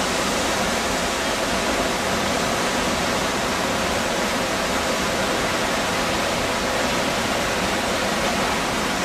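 Close-up of a waterfall in full spring flow, a narrow jet falling from a rock notch and plunging into a pool, giving a loud, steady, unbroken rush of water.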